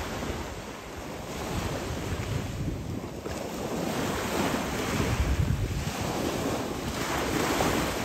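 Sea waves washing in surf, with wind buffeting the microphone; the rush of water swells and eases.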